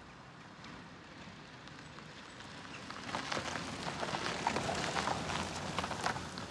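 Outdoor ambience of people around a gravel path: a steady noisy background that grows louder about three seconds in, with scattered short crunches and clicks of footsteps on gravel and faint distant voices.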